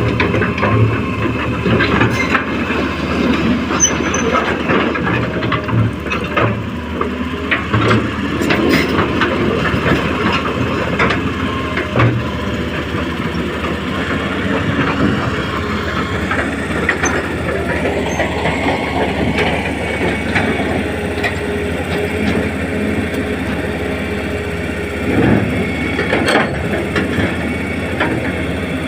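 Hitachi excavator running steadily while it digs and loads fill soil, with scattered knocks and clicks from the bucket and arm over the engine drone.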